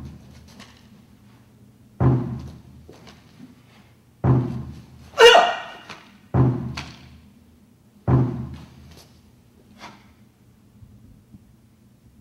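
A deep drum beating out the count for a martial-arts staff form: four single strikes roughly every two seconds, each ringing on briefly. About five seconds in comes a loud, short shout.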